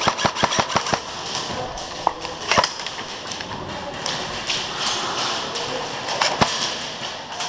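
G&G Combat Machine electric airsoft rifle firing a rapid burst of sharp clicks, about eight a second, that stops about a second in. A few single sharp clicks follow later.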